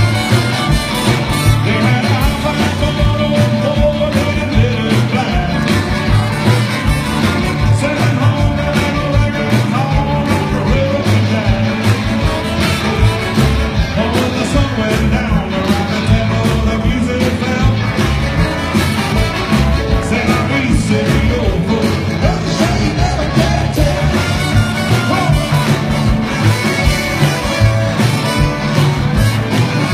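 Live rock and roll band playing electric guitars, upright bass, drums and accordion, with a male lead vocal.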